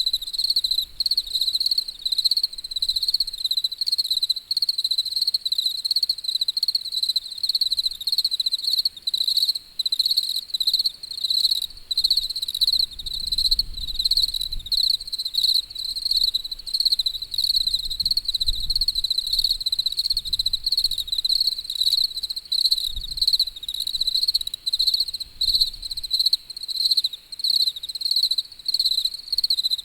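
Crickets chirping steadily: one high, even trill in rapid, regular pulses that goes on without a break.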